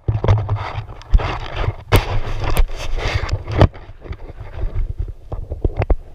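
Handling noise from an action camera being moved and fitted on the climber: rubbing and scraping right against the microphone with sharp knocks, the loudest about two seconds in and just after three and a half seconds, then scattered small clicks.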